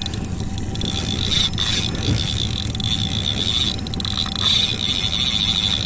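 Spinning reel's drag buzzing in a steady high whine as a bluefin tuna strips line against it, fading in the first second and again briefly around four seconds. A low, steady boat-engine hum runs underneath.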